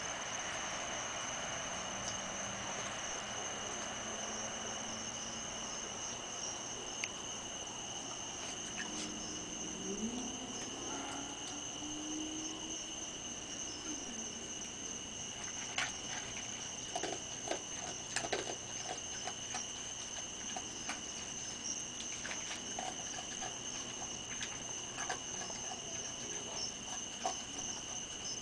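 Crickets trilling steadily in one unbroken high tone. In the second half there are scattered short clicks and taps, from raccoons feeding from a plate.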